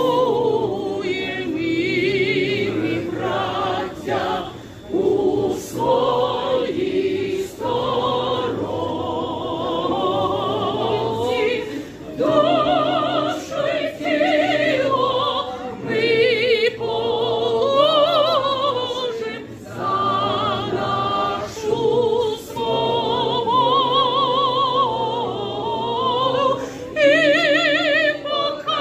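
A crowd of men and women singing a song together in unison, unaccompanied, with at least one strong voice held in wide vibrato above the rest, pausing briefly between phrases. The singing fills a vaulted underground metro station hall.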